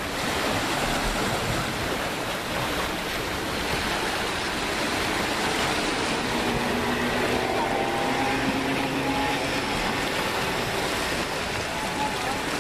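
Steady rushing of the sea at a rocky harbour shore, small waves washing against the stones.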